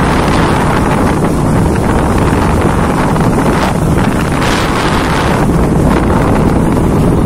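Steady, loud wind rush buffeting the microphone of a moving motorcycle, with the low rumble of the ride underneath.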